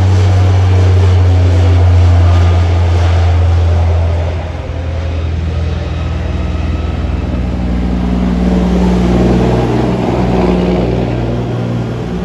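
An engine running steadily with a deep, droning hum, loudest for the first four seconds and then easing off a little.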